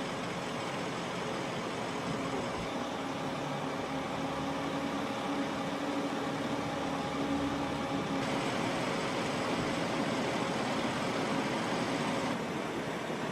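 Steady running noise of vehicle engines with a few constant hum tones; the sound changes abruptly about eight seconds in and again about twelve seconds in.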